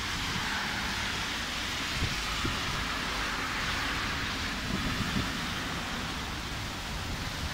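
Heavy rain pouring steadily onto a flooded street, with cars driving through the standing water. Wind rumbles on the microphone underneath.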